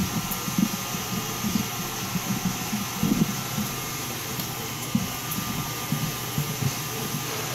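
Cookie dough being mixed in a bowl: irregular low knocks several times a second over a steady whirring hum.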